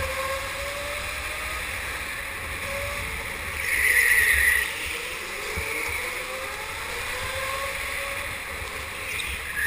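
Go-karts running on a track, heard from onboard: a steady rush of wind and tyre noise with the whine of kart motors rising and falling. A louder hiss swells for about a second, four seconds in, and a sudden knock comes at the very end.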